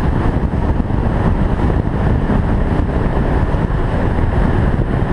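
Motorcycle riding at road speed: a loud, steady rush of wind on the bike-mounted camera's microphone mixed with road and engine noise.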